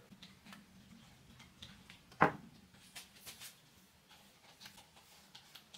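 Hands handling a wooden chair frame: scattered light clicks and taps, with one sharp knock a little over two seconds in.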